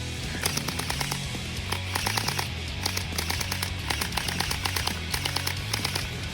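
Background music with a steady bass, over several bursts of rapid clicking shots from gel blasters firing on full auto.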